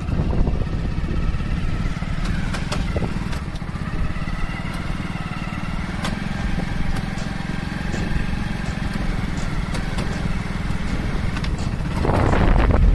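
Hero motorcycle's engine running steadily while being ridden at speed, with wind and road noise. A louder rush comes in near the end.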